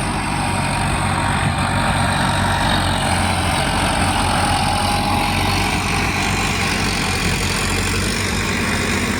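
A motor engine running steadily at idle, a constant low hum with an even hiss over it.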